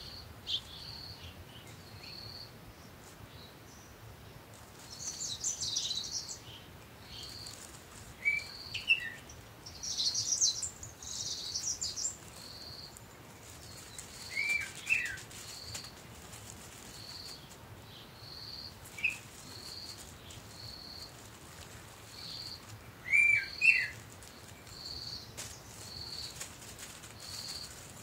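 Small bird chirping, a short high note about once a second, with louder sharp falling chirps every few seconds. Now and then plastic freezer bags rustle as they are handled.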